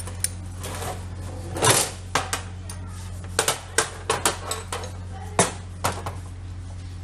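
Metal tools and bolts clinking and knocking against a car air-conditioning compressor's clutch and pulley as it is taken apart, in a string of irregular sharp clicks, with a steady low hum underneath.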